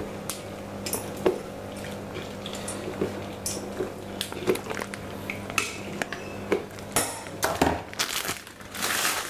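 Kitchen tongs knocking and scraping against the side of a stainless steel pot as spaghetti is stirred into boiling water: irregular clinks throughout, coming thicker near the end, over a steady low hum.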